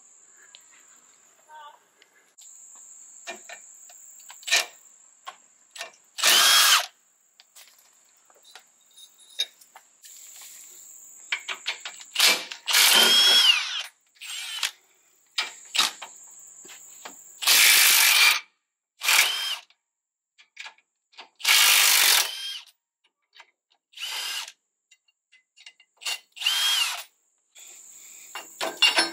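Milwaukee cordless power tool run in about eight short bursts, each spinning up then stopping, with small metallic clicks between them as bolts on the truck's rear suspension are worked.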